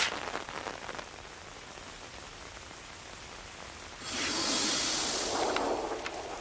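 Steady rain falling, as an anime sound effect. About four seconds in, a louder hissing swell comes in and fades over the following two seconds.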